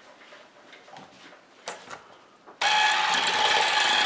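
Electric hand mixer switched on about two and a half seconds in, running steadily with a motor whine as it beats an egg into creamed butter and sugar in a steel bowl. Before it starts, a few light clicks and knocks of handling.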